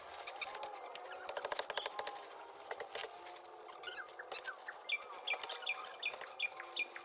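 Small bird chirping outdoors: a few thin high whistles, then a quick run of about seven falling chirps, roughly three a second, near the end, with scattered light clicks and ticks underneath.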